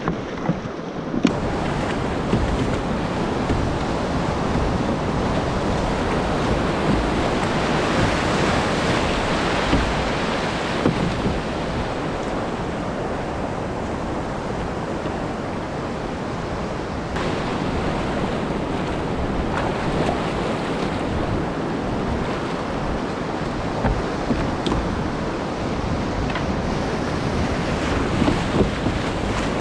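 Surf breaking and shallow water washing around the hulls of a sailing kayak, with steady wind noise on the microphone.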